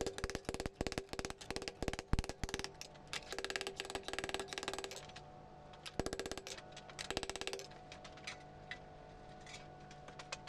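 Ball-peen hammer tapping quickly on a thin sheet-metal ring laid on an anvil, each blow ringing, in several fast runs with short pauses; the blows stretch the ring's inner lip so it flares open. The hammering stops a few seconds before the end.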